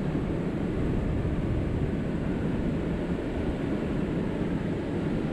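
Steady low rushing noise of fast-flowing river water, with wind buffeting the microphone.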